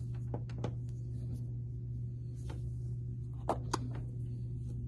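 Light clicks and taps of an Apple Watch Series 3 being handled against its magnetic charging puck, then two sharper knocks about three and a half seconds in as the watch is set down in its cardboard box tray. A steady low hum runs underneath.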